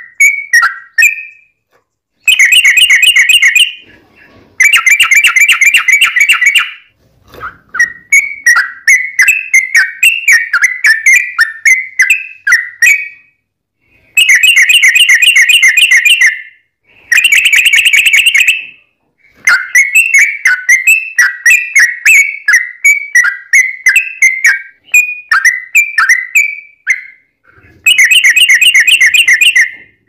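Yellow-vented bulbul (trucukan) singing its long rolling song: fast chattering trills of about two seconds each, alternating with looser strings of bubbly, whistled notes, phrase after phrase with short pauses between.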